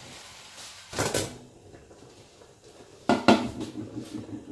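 Stainless steel pressure cooker's lid lifted off and set down: a short hiss about a second in, then a sharp metal clank about three seconds in, the loudest sound, with the water inside the pot boiling.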